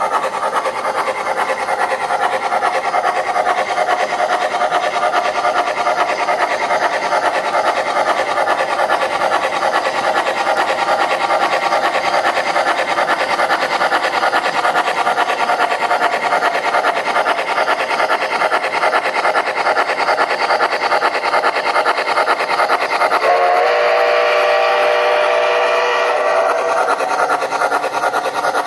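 Onboard sound system of an MTH Premier O-gauge Climax geared steam locomotive model playing rapid steam chuffing as it runs. About 23 seconds in, a steam whistle sounds for about three seconds.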